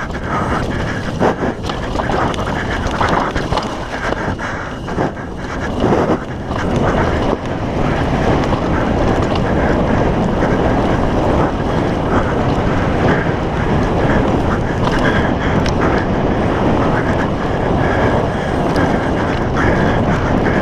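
Wind rushing over the camera's microphone, with a downhill mountain bike's tyres rolling on loose dirt and the bike clattering over rough ground. The knocks thin out after about seven seconds, leaving a steadier rush of wind and tyre noise as the bike runs fast along a smoother straight.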